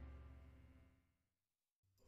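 The tail of background music fading out into near silence.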